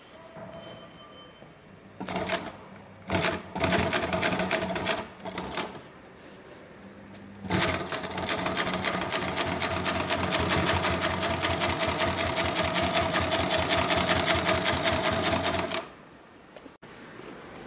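Hightex 768 two-needle post-bed compound-feed industrial sewing machine stitching, its needles going with a rapid, even rhythm. It sews in three short bursts, then runs steadily for about eight seconds and stops near the end.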